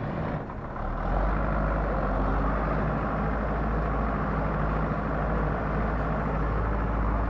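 Zetor 6911 tractor's four-cylinder diesel engine running, heard from inside the cab as the tractor drives. About a second in it gets louder with a strong low drone as the throttle opens, then runs steadily.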